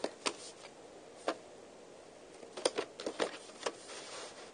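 Light, scattered clicks and knocks of a thin plastic VHS case being handled, about five in all, with a faint rustle near the end.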